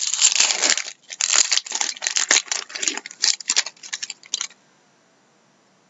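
Trading card pack wrapper being torn open and crumpled by hand: a rapid, loud crinkling crackle that stops about four and a half seconds in.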